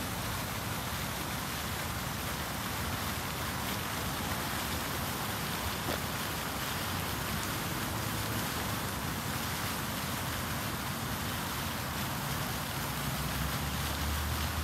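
Five fountain jets splashing steadily into a shallow basin. A low rumble, like a passing vehicle, builds near the end.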